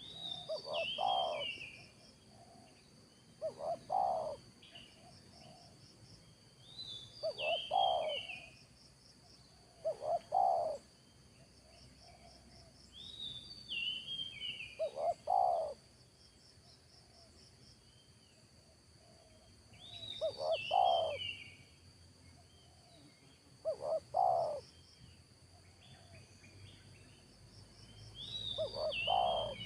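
Spotted dove cooing: short repeated coo phrases every few seconds, about eight in all. Between them another bird gives short falling whistled notes, over a steady high ticking trill of insects.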